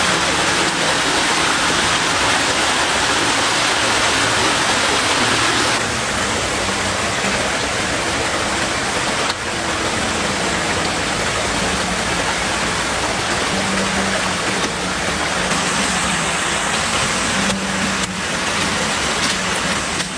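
Rushing water from a forest stream and waterfall: a steady, loud hiss that eases slightly about six seconds in.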